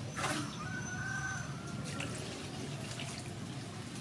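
Water scooped from a clay jar with a plastic bowl and poured over noodles in a steel bowl, splashing and trickling, with a short knock just after the start.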